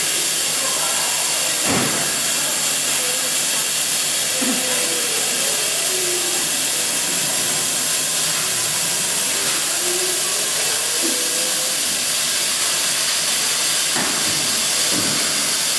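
Laser cutting machine at work: a steady hiss of air blowing from the air-assist nozzle of the cutting head, with a faint motor whine rising and falling in pitch as the head traces the cut. Two short clicks, about two seconds in and near the end.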